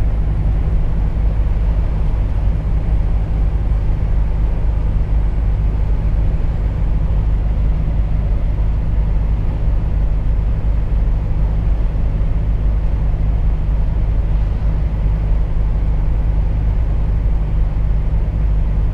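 Volvo FH 460 truck's 13-litre six-cylinder diesel engine running steadily at highway cruise with tyre and road noise: a constant low drone.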